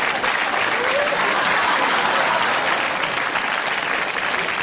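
Studio audience applauding steadily, a dense, even clapping.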